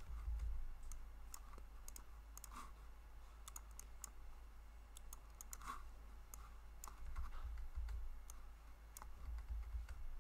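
Light, irregular clicks of a computer keyboard being typed on, over a low steady hum.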